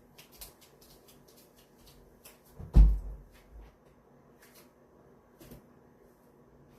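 Household handling noises: small clicks and taps, with one loud thump about three seconds in and a lighter knock later, over a faint steady hum.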